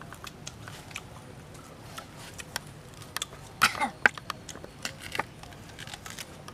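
Close mouth sounds of people eating green banana dipped in chili salt: scattered wet chewing and lip-smacking clicks, with a louder short mouth noise falling in pitch a little past halfway, followed by a sharp click.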